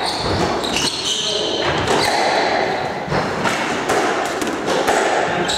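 Squash rally: the ball knocks repeatedly off rackets, walls and floor in a reverberant court, with short high squeaks of shoes on the wooden floor.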